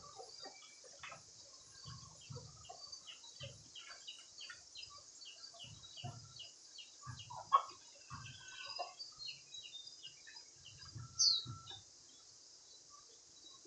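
Chickens clucking and chirping in many short calls, one louder call about halfway through. Soft low thumps and a steady high hiss run underneath.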